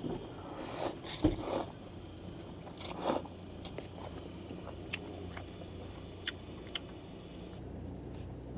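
A person eating cup ramen with chopsticks: slurping and chewing noodles in two short spells about a second and three seconds in, then a few light clicks.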